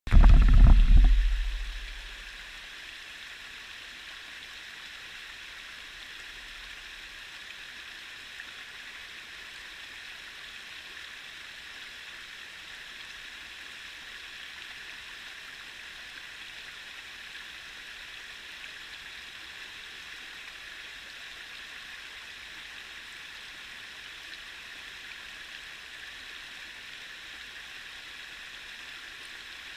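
Small rocky creek rushing steadily over a riffle of stones. At the very start, a loud low rumble lasts about a second and a half, then fades.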